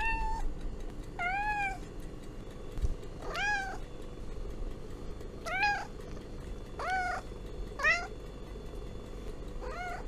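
Domestic cat meowing repeatedly: about seven short meows, each rising then falling in pitch, one every second or two.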